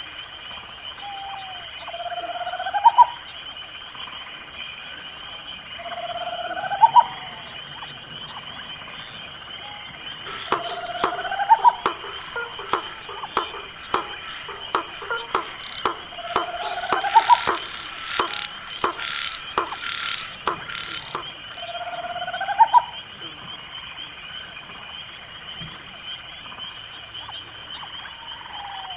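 Night chorus of crickets trilling steadily at a high pitch, with a short rising call repeated about every five seconds. A quick run of clicks comes through the middle.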